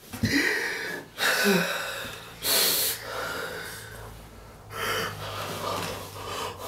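A man sobbing hard: a run of ragged, gasping breaths and choked cries, the loudest about two and a half seconds in.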